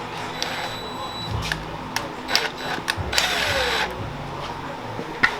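Handheld power tool's motor whirring in short runs while working on a V8 engine teardown, its pitch falling as it spins down after the loudest run near four seconds in, with sharp metallic clicks from the engine parts being handled.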